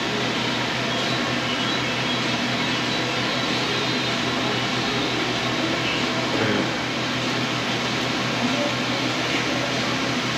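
Steady mechanical hum with an even whooshing noise, like a ventilation fan running, with a brief low sound about six and a half seconds in.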